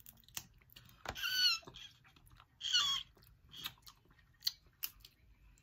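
Small clicks and cracks of shellfish being picked apart and chewed. Two short, high-pitched wavering squeals come about a second in and about three seconds in.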